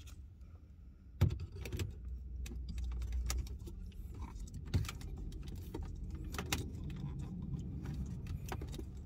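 Irregular plastic clicks and rattles from a phone vent-clip mount as it is handled, tightened and fitted onto a car air vent, over a low steady rumble.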